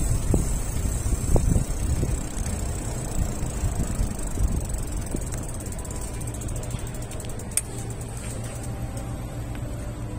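City street ambience: a low rumble, gusty at first and settling into a steady low hum of traffic. There is one sharp click about seven and a half seconds in.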